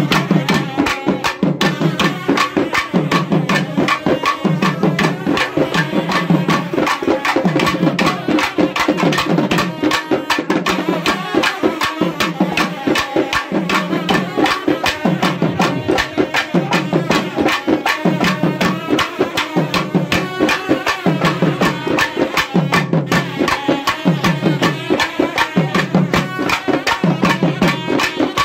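Several thavil drums played together: rapid, dense stick strokes over a deep booming beat that comes about once a second.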